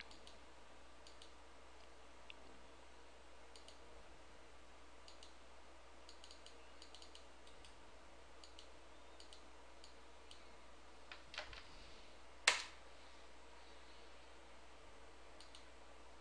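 Faint clicks of a computer mouse and keyboard, scattered and irregular, with two louder clicks about two-thirds of the way through.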